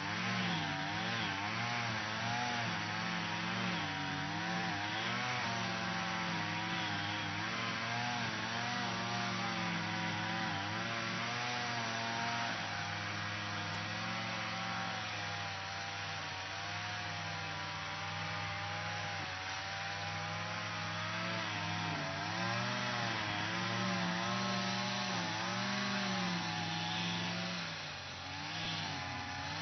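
Lawn mower engine running steadily while cutting grass, its pitch wavering up and down over the stretch, with a brief dip in level near the end.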